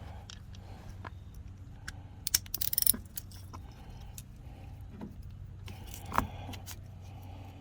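Metal hand tools clinking and jingling, a socket and wrench being handled on a snowblower bolt: a short irregular burst of clinks a few seconds in and a single sharp click later, over a low steady hum.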